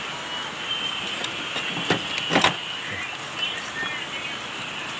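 Steady background hiss with a few knocks and rustles of handling, the loudest a pair of knocks about halfway through.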